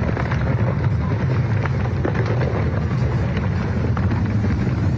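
Rockslide set off by an earthquake: a steady low rumble of rock coming down a slope, with many small cracks and clatters of tumbling stones.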